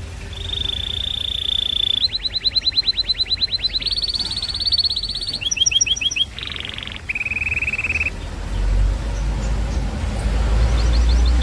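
Domestic canary singing a chain of rolling trills, each a fast run of one repeated note at its own pitch, switching to a new trill every second or two, with a short harsh buzzy note about six seconds in. A low rumble sits underneath in the second half.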